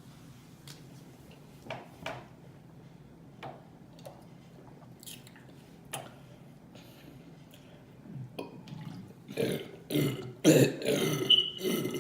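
A few faint clicks, then about eight seconds in a person lets out a long, loud burp that comes in several broken-up pulses over the last three seconds. It sounds like an old pickup truck running out of gas.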